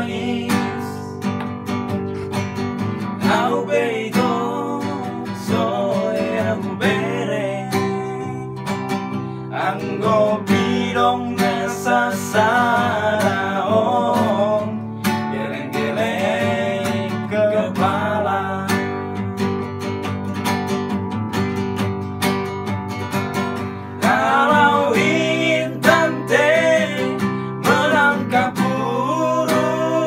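Classical nylon-string guitar strummed as accompaniment while several men sing a song together in Indonesian.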